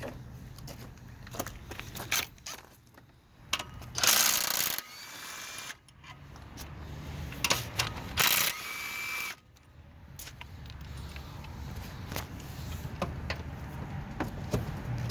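Two short bursts of a power tool, each with a whine, about four and eight seconds in, amid scattered metallic clinks of tools and parts during Prius engine head gasket work.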